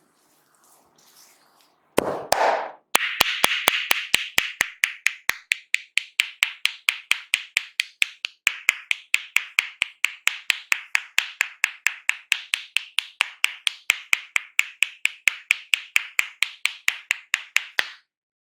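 Hands tapping rapidly on a person's head during an Indian head massage: a steady run of sharp slaps at about four a second, with a hiss between the strikes. A short rubbing burst comes about two seconds in, just before the tapping starts.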